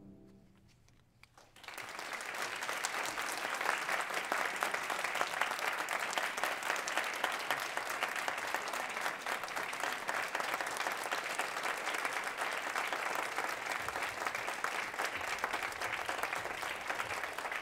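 The last sustained chord of a grand piano dies away, and about a second and a half later an audience bursts into applause that continues steadily.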